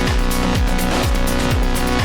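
Electronic dance music with a steady beat: a deep kick drum about twice a second under ticking hi-hats.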